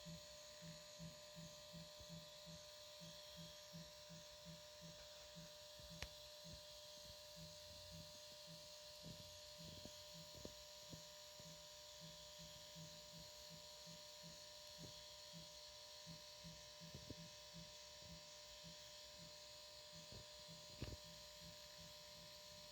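Faint, distant low drumming: an even, steady thudding beat of about three thumps a second from an unidentified source in the woods at night, with a couple of sharp clicks along the way.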